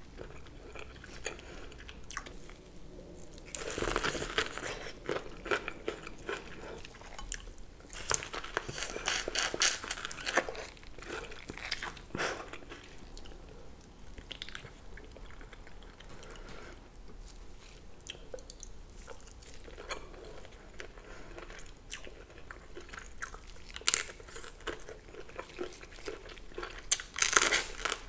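Close-miked eating sounds of a person chewing sauce-covered giant prawn meat, mouth sounds coming in several loud clusters a few seconds apart with quieter chewing between.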